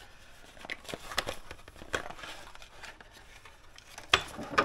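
A bar-end mirror being unpacked from its cardboard box and packaging: rustling and crinkling with small clicks, then two sharper knocks near the end.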